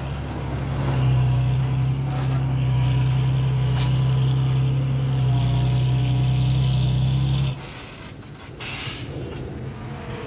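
Heavy-equipment diesel engine running steadily, loud and low, then dropping away suddenly about three-quarters of the way through, followed by a short hiss.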